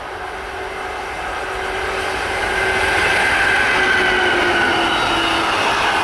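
Electric locomotive at the head of an intermodal freight train of truck trailers on pocket wagons approaching and passing, growing louder over the first three seconds. A whine from the locomotive sinks slightly in pitch as it goes by, then the loaded wagons run past steadily.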